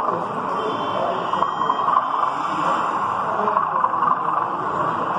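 Steady background chatter of many people in an exhibition hall, with no single voice standing out.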